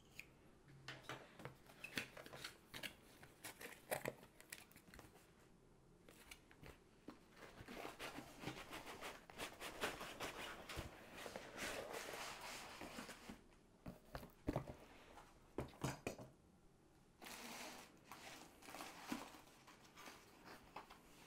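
Packaging being opened by hand: clicks and scraping as tape is cut with a craft knife, then paper rustling and crinkling as the canvas roll in its paper wrapping is handled, densest in the middle.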